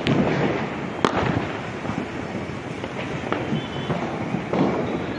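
Diwali firecrackers and fireworks going off, with one sharp, loud crack about a second in and several duller bangs scattered through the rest, over a constant noisy background.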